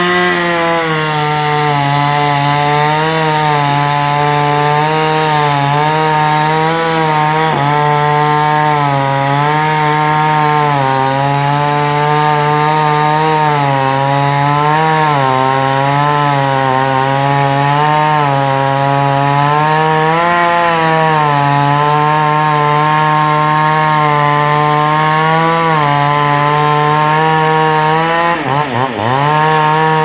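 Two-stroke chainsaw with a long bar running at high revs as it cuts through a large log, its engine note wavering slightly under the load. Near the end the pitch drops sharply and climbs straight back.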